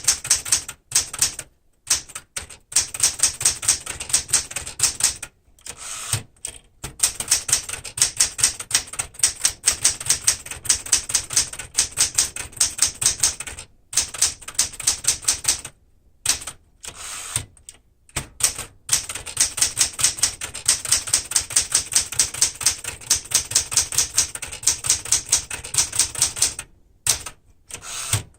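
1973 Smith-Corona Galaxie Twelve manual typewriter being typed on fast, a rapid run of key strikes on the platen. The typing is broken by several short pauses.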